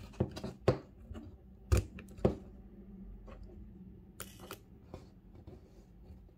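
Clicks and knocks from an electric arc lighter's plastic body and slide switch as it is handled: five sharp clicks in the first two and a half seconds, then a short hissing crackle about four seconds in.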